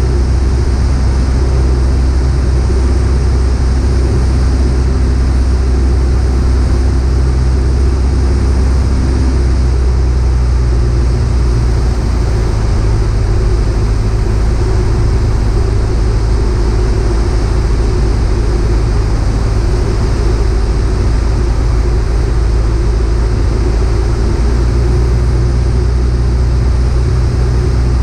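Piper PA-38 Tomahawk's four-cylinder Lycoming engine and propeller droning steadily in flight, as heard inside the cabin. Its tone shifts slightly about eleven seconds in.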